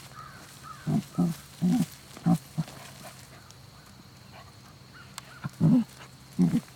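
Dachshund giving a series of short, low huffs as it sniffs and snuffles, five in quick succession and then two more near the end.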